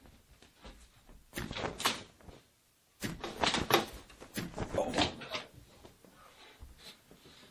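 Knocking and rattling, like hard objects clattering against wood, in two bursts: one about a second and a half in and a longer one from about three to five and a half seconds in, with fainter rustling afterwards.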